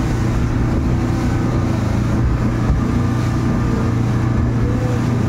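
Outboard motor of a speedboat running steadily at speed close by, under the load of towing a banana boat, with the rush of the churning wake.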